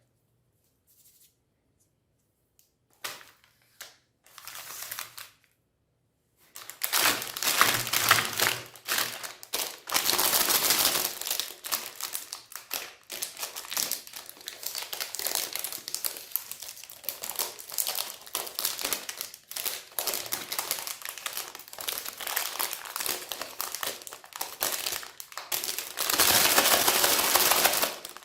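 Dense, irregular crackling and crinkling with rapid clicks, starting about six seconds in after a few faint rustles, with the loudest stretch near the end.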